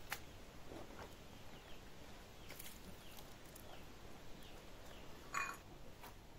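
Faint birds chirping with short, falling chirps, over scattered light clicks; a brief, louder pitched call about five seconds in.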